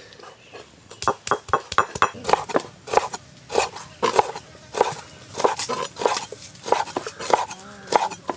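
Knife cutting squid into rings on a wooden board: a run of sharp knocks, about two a second.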